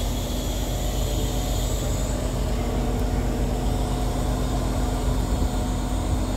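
Diesel engine of a 140-tonne railway breakdown crane running steadily: a constant low drone with a steady hum above it.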